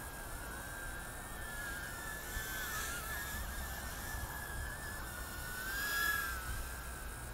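JJRC H36 mini quadcopter's tiny motors and propellers whining in flight, the high pitch wavering up and down with throttle and swelling about six seconds in. Low wind rumble on the microphone underneath.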